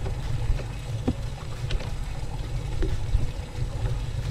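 Steady low rumble of a fishing boat on open water, with a few faint light knocks.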